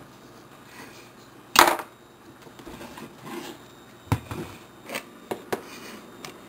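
Kitchen knife and green pepper knocking on a cutting board during slicing: one loud sharp knock about a second and a half in, then a few lighter clicks later on.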